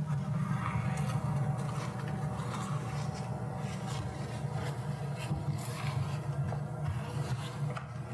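Small hand tool scraping and clicking on the plastic housing of an opened LED work light, many short scratches and ticks, over a steady low hum.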